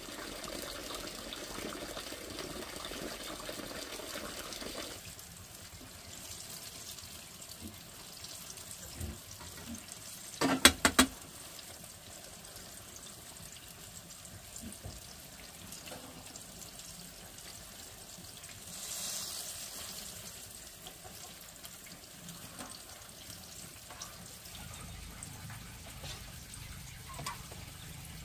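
Water running or pouring for about five seconds, then quieter handling sounds with small clicks and three sharp knocks in quick succession about ten and a half seconds in, the loudest thing here; a brief hiss follows near the nineteen-second mark.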